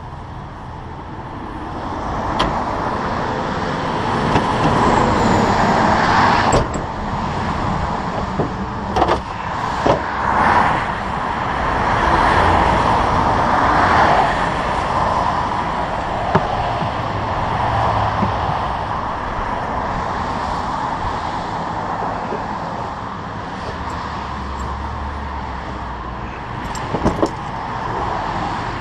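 Highway traffic passing at speed, a rushing noise that swells and fades as vehicles go by, with a few sharp knocks in between.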